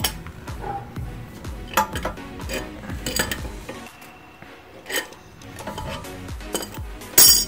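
Adjustable spanner and steel caliper piston wind-back tool clinking as the tool's nut is worked loose on a rear brake caliper: scattered sharp metal clicks, the loudest just before the end. Background music plays underneath.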